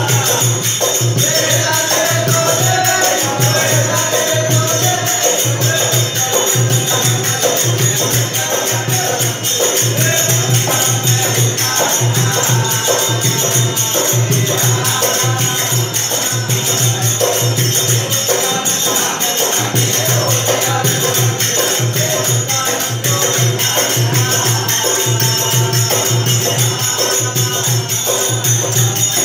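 Bhajan music: singing over a steady, regular drum beat with a continuous high shimmer of percussion.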